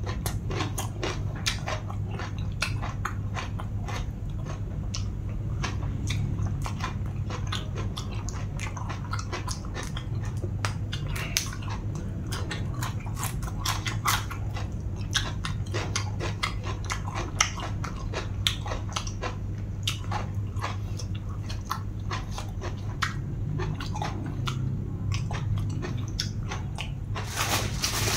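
Close-miked chewing, with wet mouth clicks and lip smacks coming irregularly throughout, over a steady low hum. A louder hissing noise starts near the end.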